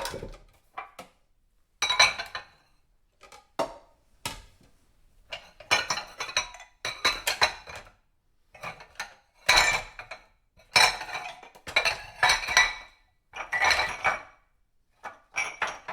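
Dishes and cutlery being handled while washing up: irregular bursts of clinking and clattering of plates and silverware, with brief pauses between them.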